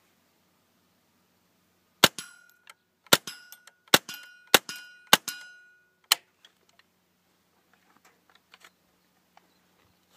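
Cooey 64B semi-automatic .22 LR rifle firing six shots, spaced about half a second to a second apart, starting about two seconds in. Four of the shots are followed by a brief metallic ring.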